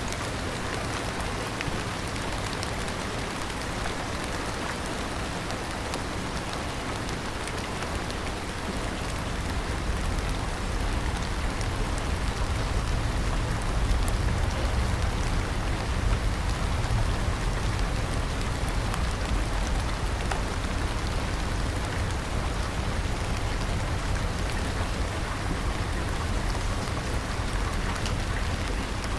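Steady rain falling, an even hiss of drops hitting surfaces, with a deep low rumble that grows louder about a third of the way in.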